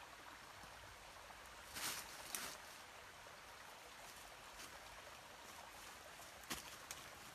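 Dry leaf litter rustling in short bursts as small plants are picked from it by hand: twice about two seconds in and twice more near the end, over a faint steady hiss.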